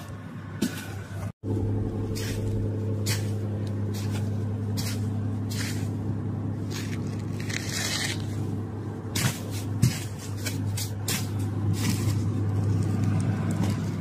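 A steady motor hum that starts after a brief cutout about a second and a half in, with scattered crunches and scrapes over it, fitting a tube being pushed through loose volcanic ash and rubble.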